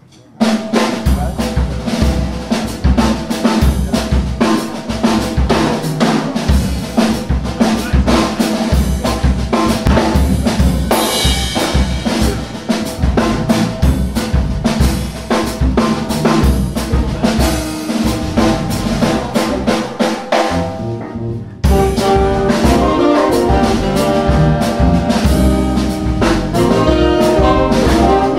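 Small jazz band with saxophones, flute, guitars and drum kit playing hard bop live. A busy drum groove drives the band, which comes in louder and fuller about three-quarters of the way through.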